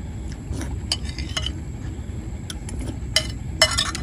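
Metal spoon clinking and scraping against a ceramic plate: a few separate clinks, then a quick cluster of them near the end, over a steady low rumble.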